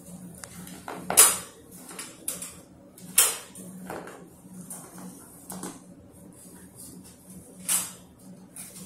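Puppies scuffling on a tiled floor beside a wire dog crate: claws clicking and scraping on the tiles. Three louder, sharp scrapes or knocks come about a second in, around three seconds, and near the end, over a faint steady hum.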